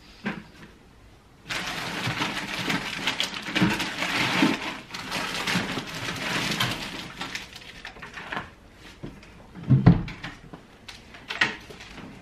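Rummaging through a cluttered cupboard: a few seconds of rustling, with plastic things and a plastic bucket knocking about, then a few separate knocks and a loud thump about ten seconds in.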